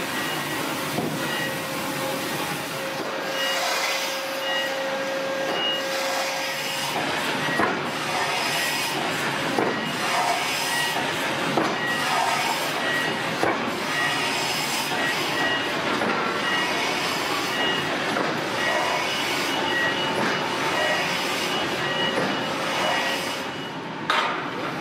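Forge shop machinery running around a hydraulic forging press: a steady mechanical din with a knock every couple of seconds in the middle and a short high beep repeating every second or so.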